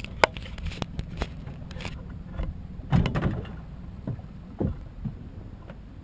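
Knocks and thumps on a small open boat as a man moves about in it. There are a few sharp clicks in the first two seconds, the heaviest thump comes about three seconds in and another near the end, all over a low steady rumble.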